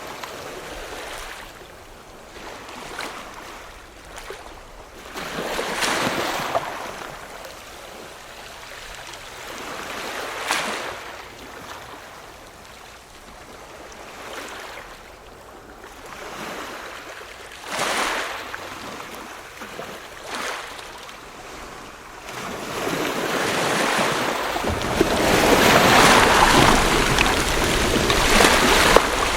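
Ocean waves washing in, each surge a swell of hiss that rises and falls over a couple of seconds. Near the end the sound builds into a louder, longer rush with a low rumble underneath.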